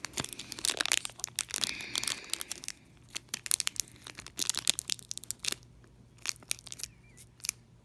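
Foil wrapper of a Pokémon booster pack being crinkled and torn open: a run of sharp crackles that thin out in the second half.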